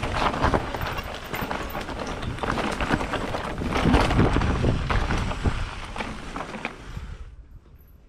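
Mountain bike descending a rough trail, heard from the rider's GoPro: wind rushing over the microphone and a dense clatter of tyres, chain and frame over roots and rocks. About seven seconds in the noise falls away suddenly.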